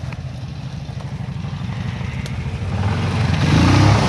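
An ATV engine running, getting much louder over the last second and a half as the quad approaches, then the rush and splash of water as it ploughs through a deep puddle near the end.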